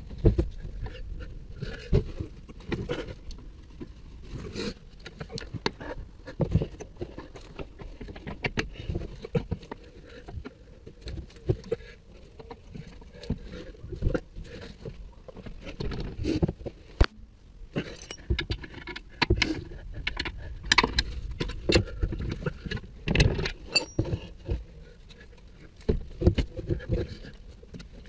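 Irregular metallic clinks and knocks of spanners and bolts against steel as a new lower suspension arm is fitted and its bolts are put in, busiest for a few seconds after the middle.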